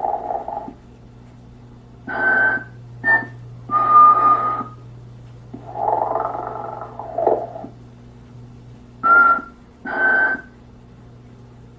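A Telco animated sleeping Mrs. Santa Claus decoration playing its recorded snoring through a small speaker. Long, low snores alternate with shorter ones that carry a brief whistling tone, over a steady low hum.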